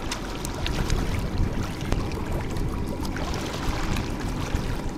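Water sloshing and trickling against the side of a boat over a steady low rumble, with a few faint knocks.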